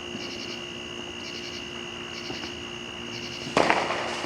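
A firework goes off with a sharp bang about three and a half seconds in, fading over about half a second. Under it, insects chirp steadily in short pulsed groups about once a second.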